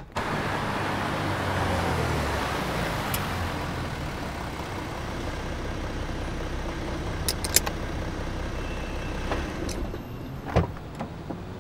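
Steady noise of a car and street traffic, with a low engine hum in the first few seconds, a few light clicks, and a single dull knock near the end.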